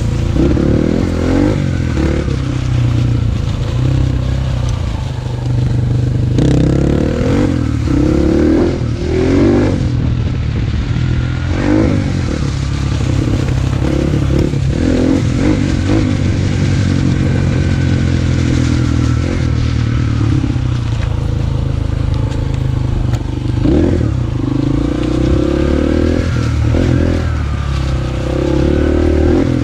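Dirt bike engine running under load as it is ridden along a rough woodland trail, revs rising and falling over and over. Short knocks from the bike hitting bumps in the trail come through several times.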